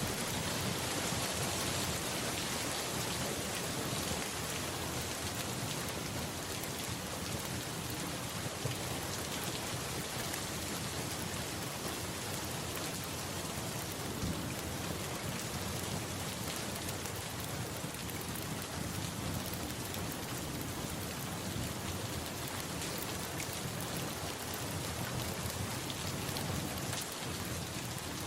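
Steady, even rain falling and pattering on a surface.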